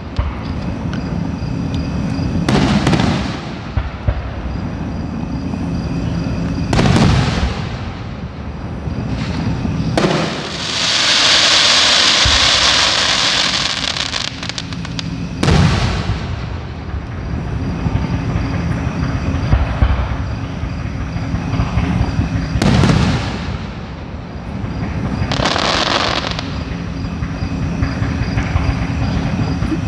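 Aerial firework shells bursting at a distance: about five booms a few seconds apart, each trailing off in a rumbling echo. Near the middle comes a steady high hiss lasting several seconds, and a low steady hum runs underneath.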